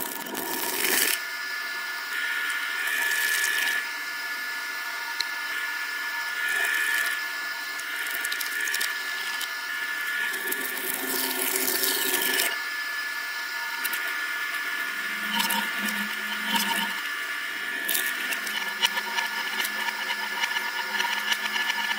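Electric twin-shaft shredder running with a steady whine, its cutter blades chewing soft foam toy pieces in irregular bursts of squishing and crunching.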